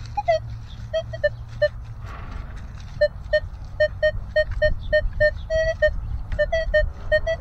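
Minelab Equinox 900 metal detector giving short, same-pitched beeps, two or three a second, as the coil sweeps over metal targets in the ground, with a brief gap about two seconds in. A low rumble runs underneath.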